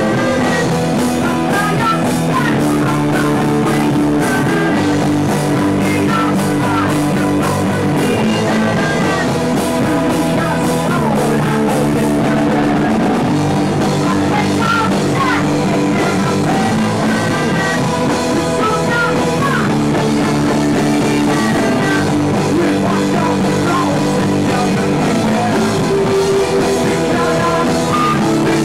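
Loud rock music played by a band on electric guitars, bass and drum kit, running steadily without a break.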